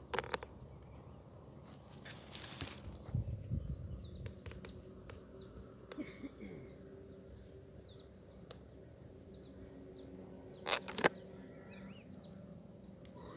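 Steady high-pitched chirring of insects, crickets by their sound, with scattered clicks and knocks of handling, the loudest about eleven seconds in.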